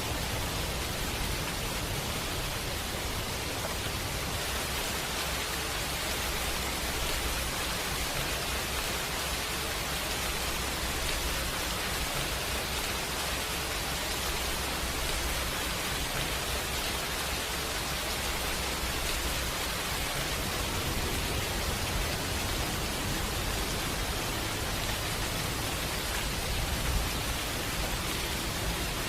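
Steady rain, an even hiss with a low rumble underneath and one brief louder tap near the end.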